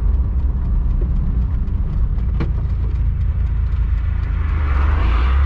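Volkswagen Kombi van driving on a paved road, heard from the cab: a steady low engine drone with road noise. Near the end a hiss rises as an oncoming car passes.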